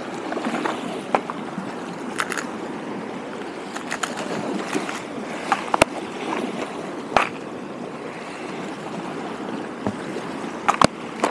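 Water lapping steadily at the shore, with a few sharp clicks and taps from handling fishing tackle while a lure is being changed.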